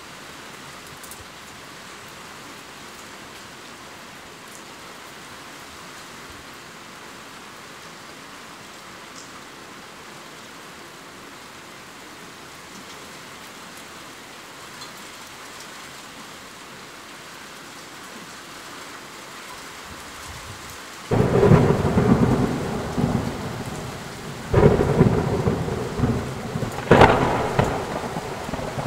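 Steady rain falling as an even hiss. Near the end a loud thunderclap breaks in suddenly and keeps rumbling over the rain in several surges.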